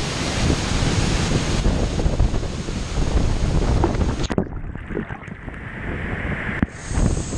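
Steady roar of rushing water from Tegenungan waterfall, with wind buffeting the microphone. About four seconds in the sound suddenly turns muffled, then it opens up again near the end.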